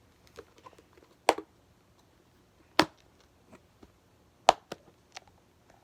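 Plastic storage bins and fidget toys being handled: scattered light clicks and taps, with three sharper knocks about a second and a half apart.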